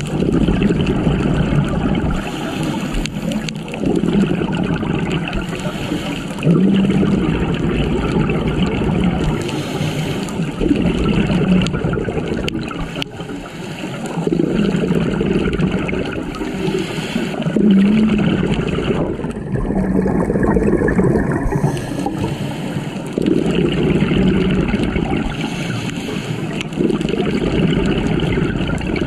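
Scuba diver's breathing heard underwater: bubbling, gurgling exhalations from the regulator that surge and fade every three to four seconds.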